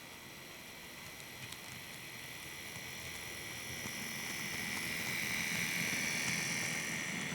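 N scale model train running on the track: a steady high motor whine with wheel rumble, growing louder as the train comes close and easing off near the end.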